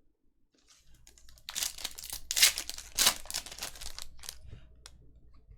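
Plastic wrapper of a trading-card pack being torn open and crinkled: a rustling, tearing noise that starts about one and a half seconds in, is loudest around the second and third seconds, and dies away near the end.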